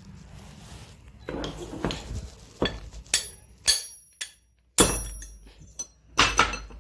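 About six sharp metal-on-metal blows, starting midway and coming roughly every half second, each with a short high ring: a stuck bit being knocked out of a rotary hammer drill.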